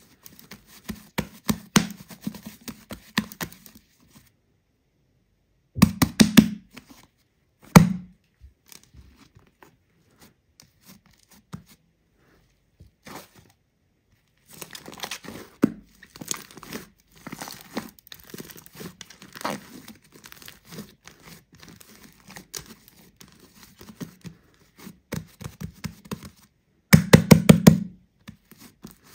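Hands squeezing and kneading a lump of airy slime mixed with shaving foam: sticky crackling and popping as trapped air bubbles burst, in bursts with quiet pauses between. The loudest burst of pops comes near the end.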